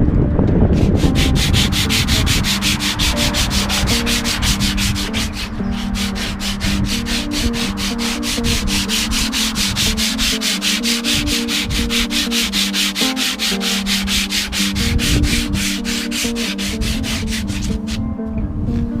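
Sandpaper rubbed back and forth by hand over the back of a wooden guitar neck in quick, even strokes, rounding its profile. The strokes pause briefly about five seconds in and stop about a second before the end.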